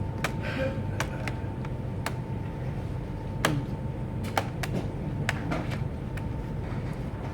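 About ten light, sharp clicks and taps at irregular intervals, the loudest about three and a half seconds in, from the plastic parts of a Dell Inspiron laptop being handled and fitted during reassembly. A steady low hum runs underneath.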